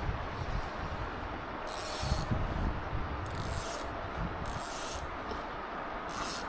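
Fly reel's click-pawl ratchet buzzing in four short bursts, as line is drawn off or wound on.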